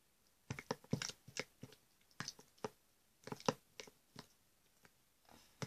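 Faint, irregular light taps and clicks from a small plastic glitter tube being tapped and shaken over a tub of slime.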